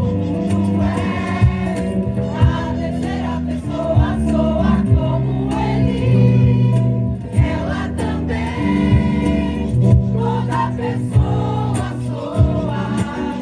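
Mixed choir singing a held, chord-based melody with acoustic guitar and hand percussion, sharp drum hits roughly once a second.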